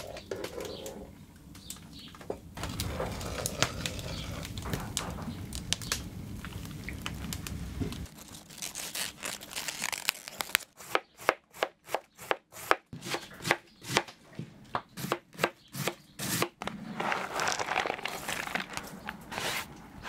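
Crisp tearing and crinkling as leaves are pulled off a head of cabbage, then a knife shredding cabbage on a plastic cutting board in quick, even strokes, about two or three a second, for several seconds. Near the end the shredded cabbage rustles as it slides off the board into a bowl.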